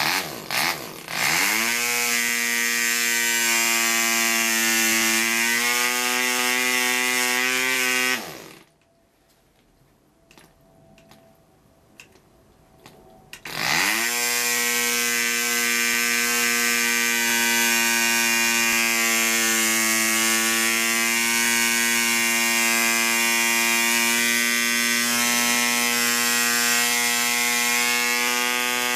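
PAW 100 two-stroke model-aircraft diesel engine firing on a hand flick of the propeller and running at a high, steady buzz. It dies about eight seconds in, a few sharp clicks of the propeller being flicked follow, and it catches again after about thirteen seconds, its pitch rising as it picks up speed, then runs steadily.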